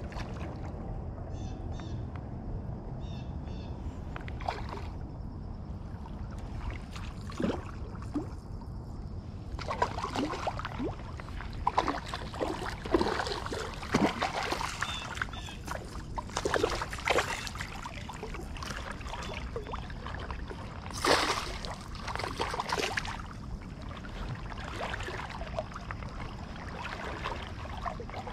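A hooked fish thrashing and splashing at the surface in shallow water, a run of splashes from about ten seconds in, the loudest about twenty-one seconds in, over steady low background noise.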